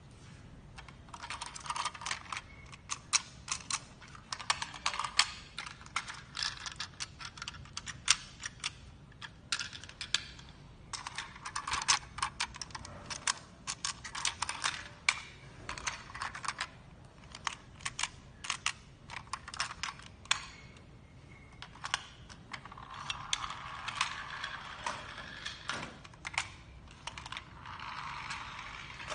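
Plastic press-and-go friction toy cars being pressed and set rolling on a hard stone floor: rapid runs of small clicks and rattles from the roof-press mechanism and friction gears, coming in bursts with short pauses, and a denser rattle near the end as a car runs.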